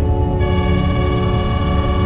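Ambient drone music over a steady low train rumble. A bright sustained horn-like note comes in about half a second in and holds.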